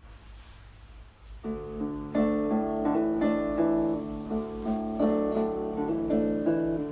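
Background music: a soft plucked melody on guitar or piano-like instrument, entering about a second and a half in after a faint hiss.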